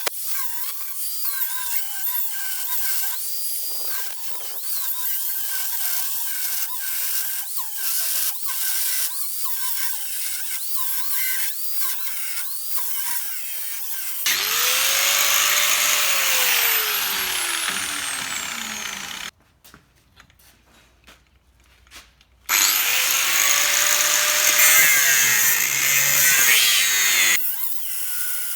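Power tools working steel. First comes a stretch of squealing chirps, then two loud runs, each with a motor whine that sinks steadily in pitch. A few seconds of quiet separate the two runs.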